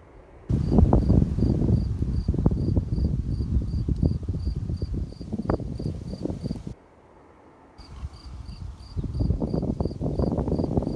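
A cricket chirping steadily, about three chirps a second, over loud, irregular crackling and knocking that stops for about a second midway and then resumes.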